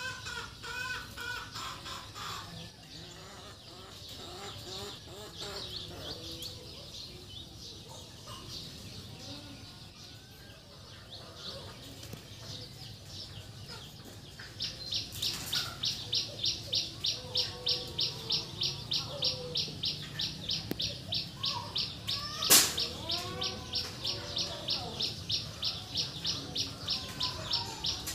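Birds chirping and clucking. From about halfway a high-pitched pulsing call sets in, repeating about three times a second, and a single sharp knock sounds about three-quarters of the way through.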